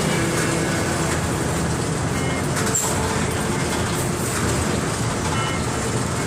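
Mercedes-Benz OF 1721 BlueTec 5 city bus's diesel engine running steadily.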